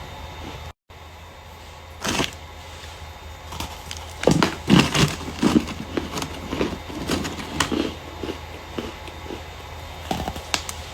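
Starch being crushed by hand: a single crunch about two seconds in, then a run of irregular crackling crunches, several a second, from about four seconds in.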